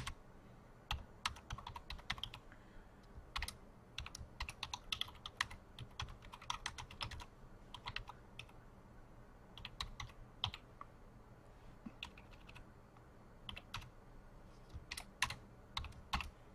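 Typing on a computer keyboard: quick, irregular keystrokes in short runs separated by brief pauses.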